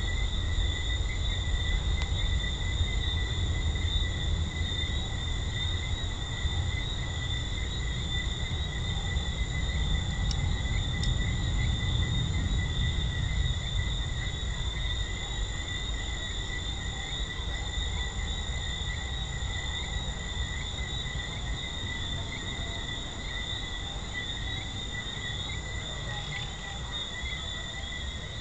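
Night chorus of Jamaican treefrogs: a continuous, steady high-pitched calling with no break, over a low steady rumble.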